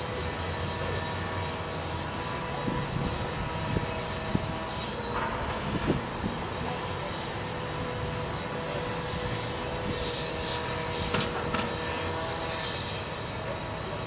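Steady engine hum carrying a faint held tone, with a few light clicks.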